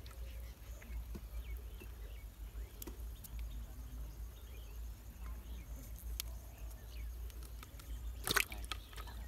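Wet handling of a small catfish as a fisherman works the hook free, with soft clicks and squishes. Near the end the fish drops into a bucket of water with a short splash, the loudest sound.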